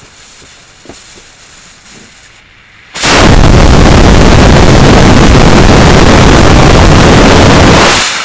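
Home-made black-powder rocket motor firing on a thrust stand: after a quieter hiss, a very loud, steady rushing blast starts suddenly about three seconds in. It burns evenly for about five seconds and dies away near the end.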